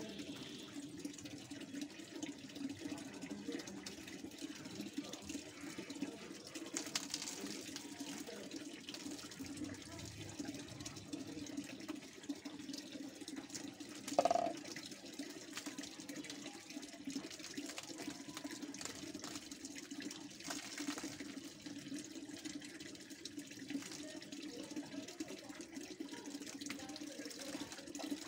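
Water splashing and pouring as soapy, very long hair is rinsed with a plastic mug over a tub and squeezed out, over a steady low hum. A brief squeak about halfway through is the loudest sound.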